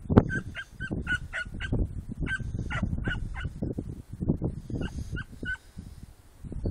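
Petit Basset Griffon Vendéen hound puppies giving tongue on a rabbit scent in the scrub: quick high-pitched yelps in three bursts, with brush rustling underneath.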